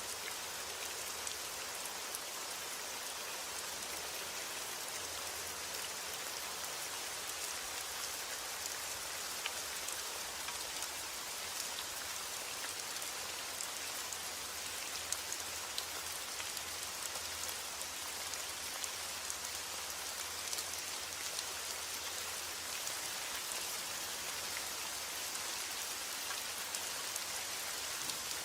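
Heavy rain falling steadily: an even hiss with scattered sharper drop ticks.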